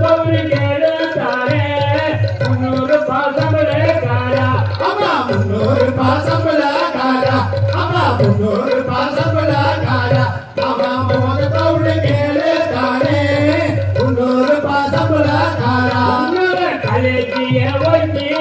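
Valli Kummi folk song: a voice singing over steady drum accompaniment.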